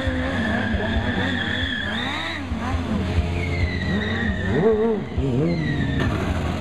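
Stunt motorcycle engine revving up and down again and again, with a high, steady tyre squeal through much of it as the bike spins circles on asphalt.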